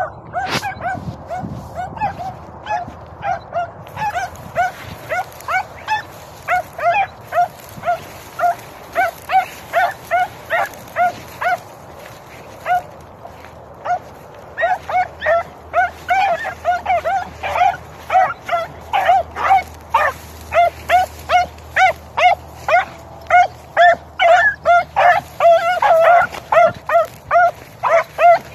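Rabbit hounds giving tongue while running a rabbit's track: a steady run of short, high barks, about one to two a second, easing off briefly about halfway through, then picking up again and coming thicker near the end.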